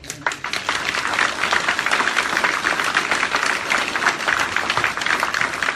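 Congregation applauding: many hands clapping steadily. It starts suddenly and begins to thin out near the end.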